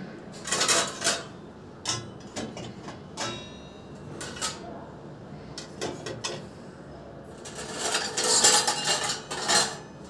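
Dishes and metal utensils clinking and clattering against a dishwasher's wire racks as it is loaded. Scattered knocks, one ringing briefly about three seconds in, then a busier, louder spell of clatter near the end.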